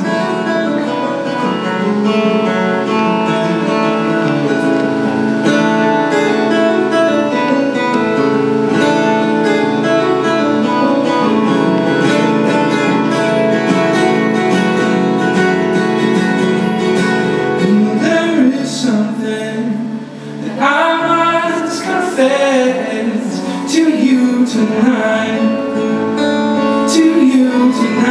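Solo acoustic guitar played live, its notes ringing and sustained, with a man singing along from about two-thirds of the way through.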